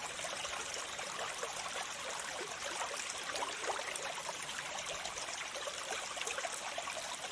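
Water falling and splashing in a steady, unbroken trickle, full of small droplet splashes.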